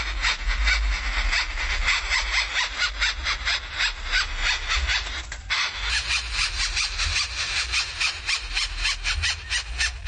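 Greater coucal nestlings begging: a harsh, rapid rasping of many quick strokes a second. It breaks off briefly a little over five seconds in, then resumes.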